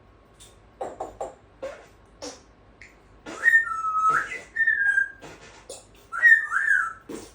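African grey parrot whistling: a few short clicks and chirps, then whistled notes that glide up and down, one run about three seconds in and another near the end.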